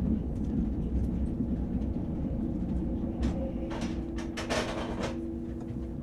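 Interior ambience of an ICE high-speed train running slowly: a steady low rumble from the running gear, with a few short hissing sounds between about three and five seconds in and a steady hum coming in at about four seconds.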